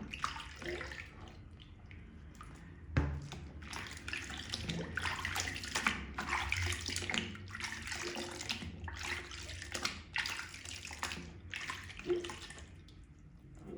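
Wet makeup sponge being squeezed and washed in water: irregular squelching and splashing, with a sharper knock about three seconds in.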